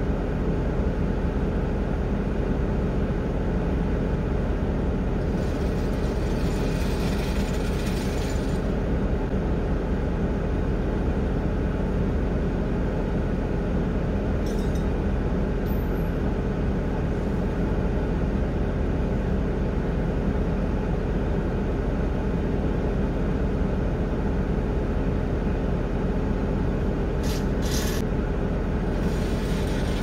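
Vehicle engine idling steadily with a constant low rumble, heard from inside the cab. A short hiss comes about five seconds in, and there are a few faint ticks near the end.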